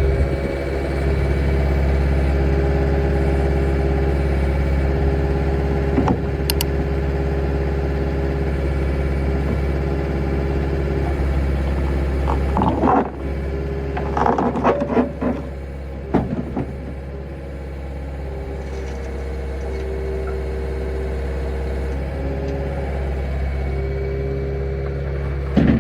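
Skid steer engine running steadily while a new toothed bucket is unloaded. A knock comes about a quarter of the way in, and a cluster of clanks and clatter falls about halfway through.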